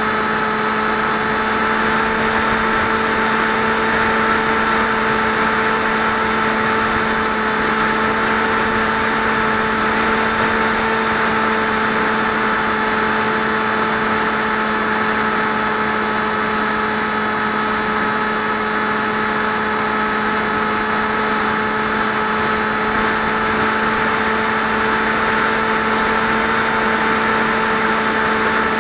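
Electric motor and propeller of a Swift 2 FPV flying wing, picked up by its onboard camera, running at a steady throttle: a constant whine at one pitch over rushing air noise.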